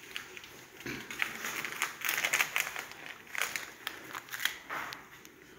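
Dry crackling and crinkling rustle close to the microphone, in irregular bursts, loudest about two seconds in.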